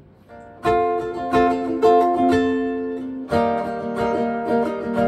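Headway nylon-string electric-acoustic guitar (elegat) strummed in chords, an instrumental passage without singing. The guitar comes in after a short lull just under a second in, with a louder stroke about three seconds in.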